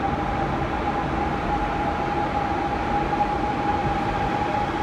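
FGC Series 213 electric commuter train pulling slowly into an underground station platform: the running rumble of the train with a steady high whine over it.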